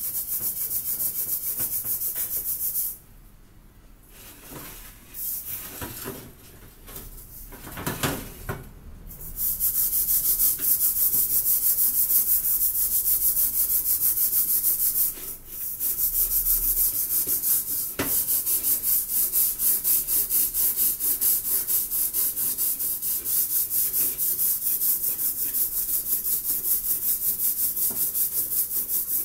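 A scouring pad scrubbing the soot-blackened bottom of a metal cooking pot: fast, even back-and-forth strokes with a gritty hiss. The strokes pause for several seconds about three seconds in, then start again and carry on, with a brief stop about halfway through.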